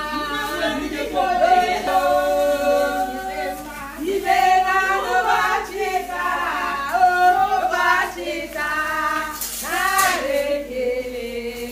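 Several voices singing, with long held notes over a steady low tone, and a brief loud high sound near the end.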